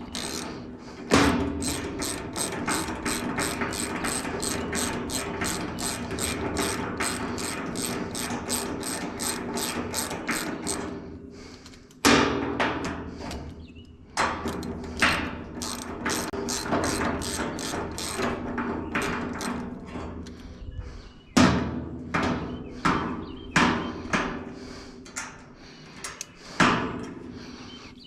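Hand ratchet wrench clicking as a nut is run down onto a bolt: a steady run of about four clicks a second, then, about twelve seconds in, slower separate strokes with short pauses between them.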